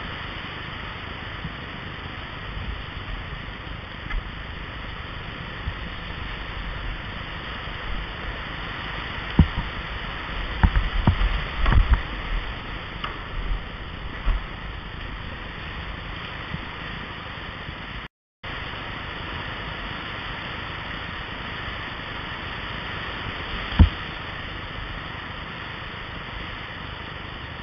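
Sea water churning and surging around a kayak in a rock garden, a steady rushing hiss. A cluster of sharp knocks and bumps comes about ten seconds in, and one more sharp knock near the end; the sound drops out completely for a moment a little past halfway.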